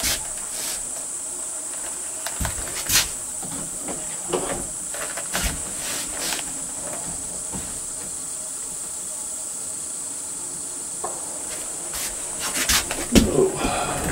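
Steady high-pitched buzz of insects, broken by a few scattered clicks and knocks, the sharpest about three seconds in and near the end.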